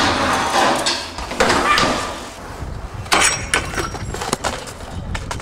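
BMX bike and rider crashing on concrete and metal rails. A sudden loud crash at the start is followed by scraping, then several sharp knocks and clanks from about three seconds in.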